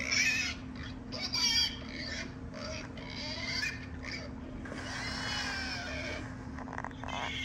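Recorded pig calls played through a phone's speaker: a string of short calls, then a longer one about five seconds in.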